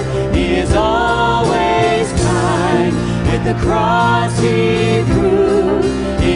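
A contemporary worship song sung live by two women's voices in held phrases with vibrato. They are backed by a band of keyboard, acoustic guitar, electric bass and drums.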